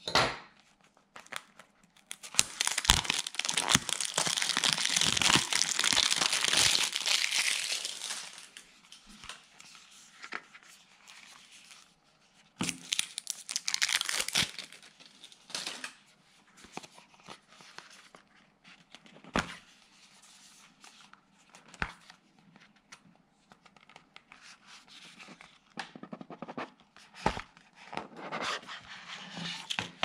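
Plastic shrink wrap being torn off a cardboard box and crinkled, loudest for about six seconds starting a couple of seconds in, with a second short burst of crinkling midway. Scattered clicks and taps from handling the box, and more rustling near the end.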